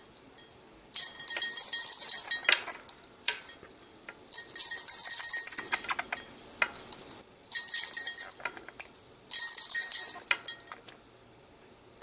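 Small metal bell in a budgie's cage jingling in four shaken bursts of about one and a half to three seconds each, with short pauses between.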